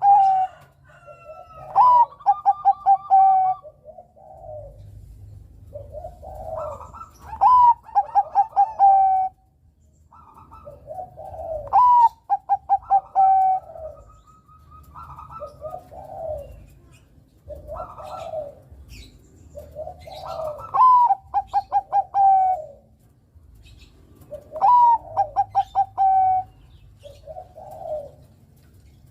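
Bangkok-strain perkutut (zebra dove) singing its cooing song: loud phrases repeated about every four to five seconds, each a rising note breaking into a fast rolling trill of coos, with quieter, lower coos between them.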